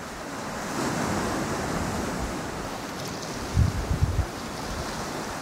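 Sea surf washing and wind, with a short run of low wind gusts buffeting the microphone a little past the middle.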